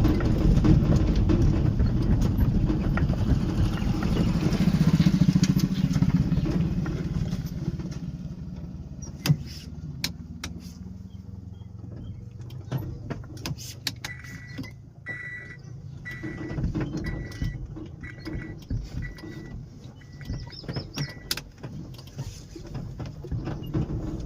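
Auto-rickshaw engine running with a loud low rumble that eases off after several seconds, as if slowing. Later comes a run of short, evenly spaced high beeps, about one a second, over scattered clicks.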